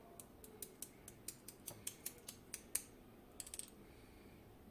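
A quick run of light clicks, about a dozen in under three seconds, then a short cluster of clicks: small pins and parts of a Kaba Gemini Plus lock cylinder being handled as it is taken apart.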